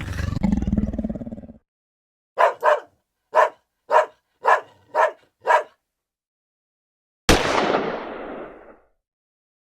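A run of separate sound effects. The tail of a big animal roar dies away first. A dog then barks seven times: a quick pair, then five evenly spaced barks about half a second apart. Near the end comes a sudden boom-like hit that dies away over about a second and a half.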